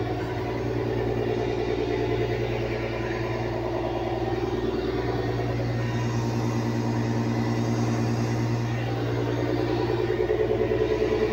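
A fishing boat's inboard diesel engine running steadily, a constant low drone with a fast, even throb.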